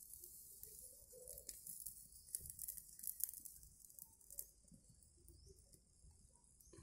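Near silence, with a few faint crackles and ticks from a paper cup burning down over tealight candles, mostly in the first half.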